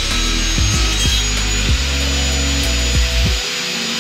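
Table saw running with its blade tilted to 35 degrees, cutting a bevel along a board: a steady high whine over the noise of the cut. Background music with a low bass line plays under it and stops about three and a half seconds in.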